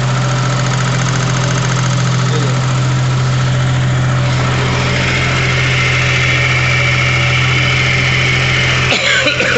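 Car-engine-driven generator running steadily with a low, even hum; a higher steady whine joins about halfway through. A short burst of clicks comes near the end.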